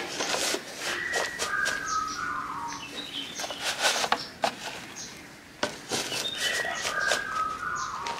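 Plastic scoop scraping into loose soil and tipping it into a crate, a run of short gritty scrapes and crumbles, with a few birds chirping in the background.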